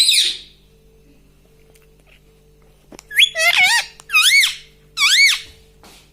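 Ring-necked parakeet calling with shrill, high rising-and-falling squawks. One call fades just after the start, and after a pause of about three seconds comes a run of four or so more.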